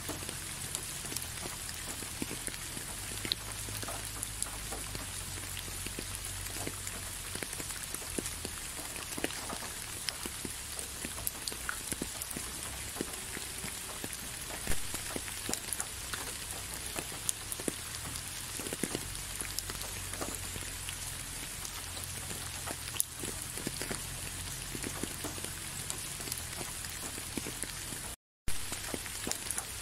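Steady rain falling, with many separate drops clicking close by. The sound drops out completely for a split second near the end.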